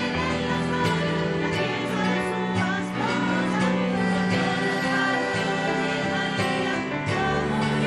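Background music of held instrumental chords with singing voices over them.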